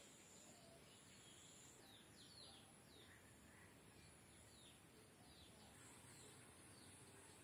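Near silence: faint room tone, with a run of faint, short, falling bird chirps in the middle.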